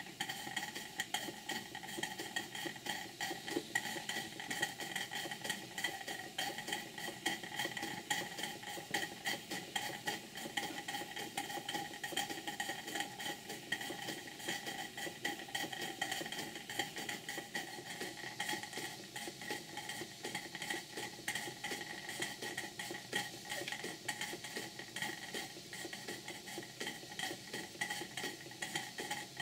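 Two small live-steam model engines, a Cyclops hypocycloidal engine and a beam engine, running together on steam: a rapid, continuous light clatter of moving parts and exhaust beats.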